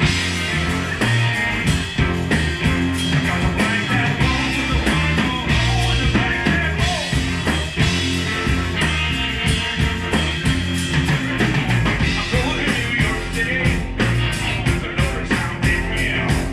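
A live rock band playing: electric guitar, electric bass and drums, with the drums keeping a steady beat.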